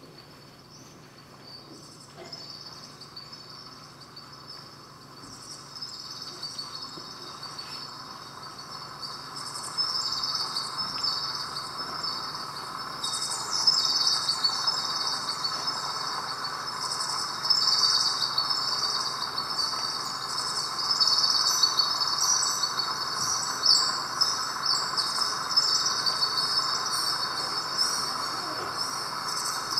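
Live electronic music from a laptop (AudioMulch): a dense mass of rapid, high, insect-like chirps and clicks over a softer hiss. It grows steadily louder, swelling about ten seconds in and again a few seconds later.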